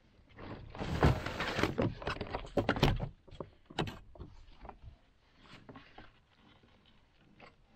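Clear plastic bag crinkling and rustling, with knocks on a plastic kayak, as a red snapper is pulled out and laid on a measuring ruler. The sound is densest in the first three seconds, then only a few scattered knocks.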